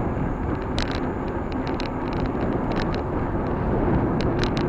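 Wind rushing over the microphone and tyres rumbling on a bicycle ridden fast, with irregular sharp ticks and rattles from the bike.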